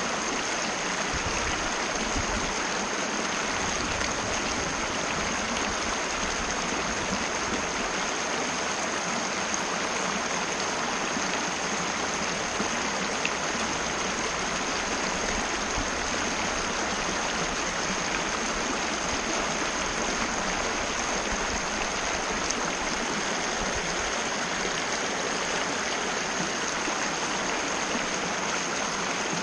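Mountain river rushing steadily over rocks, a continuous even rush of water.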